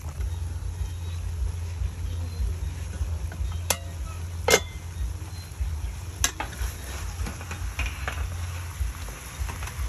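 Metal spatula working in a wok of braised chicken, with three sharp clinks against the pan, the loudest about four and a half seconds in, over a steady low rumble.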